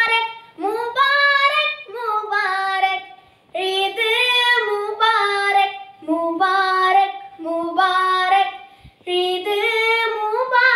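A girl singing a Malayalam Eid song solo with no accompaniment, in short phrases with brief breaths between them.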